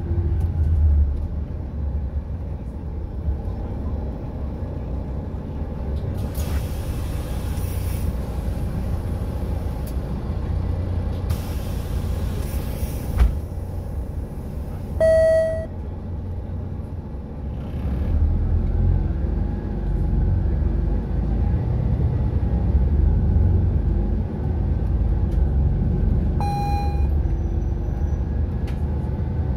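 Inside a Volvo 8900 B7RLE city bus on the move: the diesel engine and drivetrain give a steady low rumble under road noise, which grows louder about two-thirds of the way through. Brief hissing comes twice early on, and two short beeps sound later.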